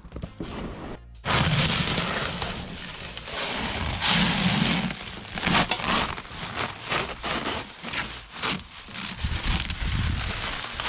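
Packaging being ripped open and handled: cardboard and wrapping scraping and rustling in loud, irregular strokes. It starts suddenly about a second in, after a short stretch of music.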